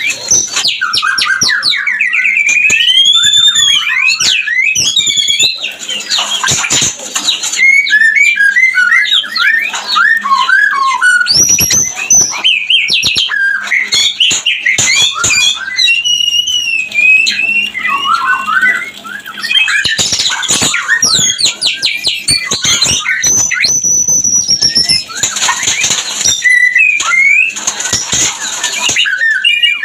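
White-rumped shama singing its breeding song: a continuous run of fast, varied phrases of whistled notes sliding up and down, broken by a few short pauses.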